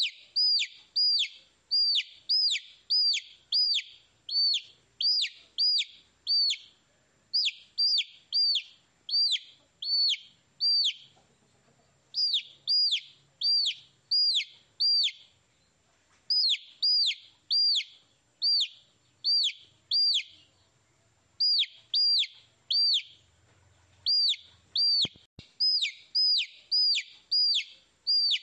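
Baby chick peeping: short, falling peeps at about two a second, broken by a few brief pauses.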